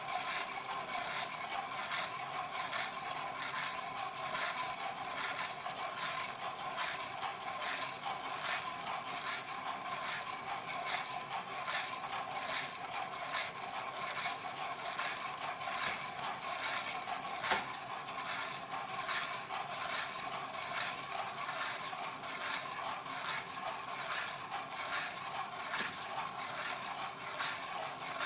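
Green coffee beans rattling and sliding inside a hand-held Iri-jouzu roaster, shaken back and forth over a gas flame in a steady rhythm. The beans are still roasting before first crack. One sharper click stands out about seventeen seconds in.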